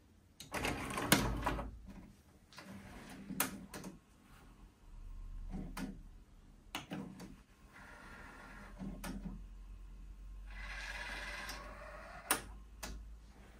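Pioneer D-05 DAT deck loading a cassette: the tray motor draws it in, then the transport clicks several times and whirs twice as it threads the tape, over a low motor hum.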